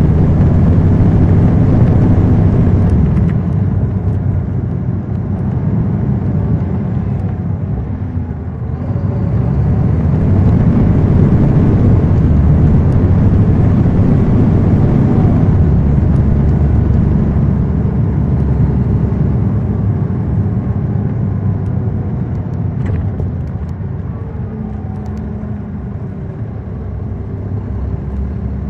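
NABI 40-SFW transit bus's Caterpillar C13 inline-six diesel and ZF six-speed automatic, heard from the rear of the cabin while the bus is under way. The low rumble swells about nine seconds in, holds for several seconds, then eases and fades over the last ten seconds or so.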